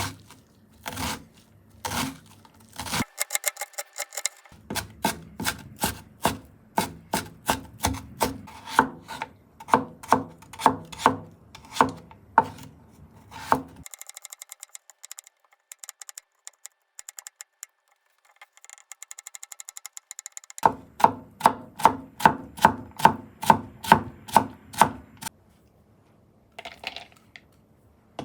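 Kitchen knife chopping on a cutting board in a steady rhythm of about two strokes a second, with a quieter stretch in the middle before the chopping starts again.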